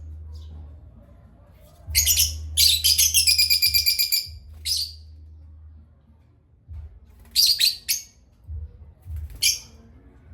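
Parrots chirping in short, high-pitched bursts, about five of them, the longest a quick run of rapid chirps a few seconds in. A steady low hum runs underneath.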